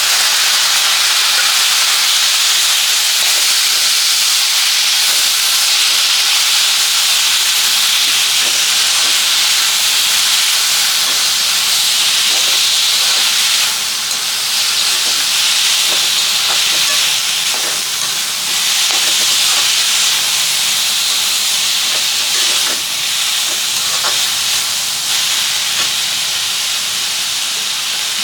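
Onion, garlic and spices sautéing in hot oil in a kadai: a loud, steady sizzle that dips slightly a couple of times.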